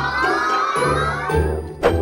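Playful background music with a held, gliding cheer-like sound effect over it.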